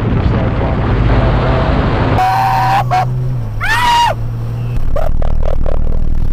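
Porsche 911's flat-six engine running at speed with tyre and wind noise, heard from outside the car. About two seconds in the sound switches to the cabin: a steady low engine drone under a shout that rises and falls in pitch, then short bursts of laughter.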